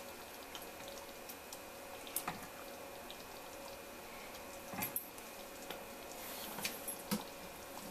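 Metal ladle scooping thick curry sauce from a pan into a small glass bowl: a few scattered clicks and wet plops over a faint steady hum.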